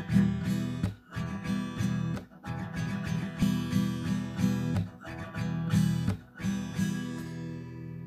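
Background music: an acoustic guitar strumming chords, with the last chord left to ring and fade near the end.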